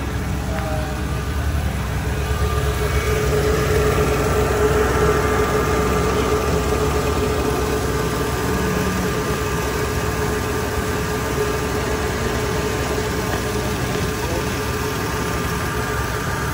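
Jaguar XF engine idling steadily: a continuous low hum with a faint steady whine above it.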